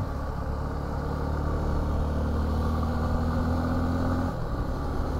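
Suzuki V-Strom 250's parallel-twin engine running at steady throttle, its note climbing slightly before the pitch drops abruptly a little over four seconds in.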